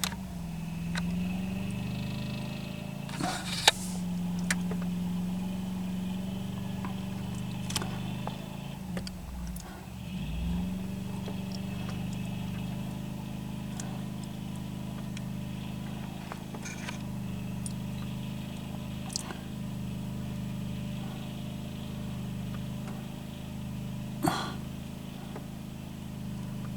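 Chevy K-series 4x4 pickup's engine running steadily while driving through deep snow, its pitch dipping briefly around nine to eleven seconds in. A sharp knock comes a few seconds in, and another near the end.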